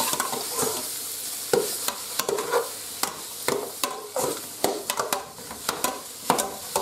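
Metal spoon stirring and turning pieces of curry-spiced possum meat in a hot aluminium pot, knocking and scraping against the pot walls many times at an uneven pace, while the meat sizzles as it browns.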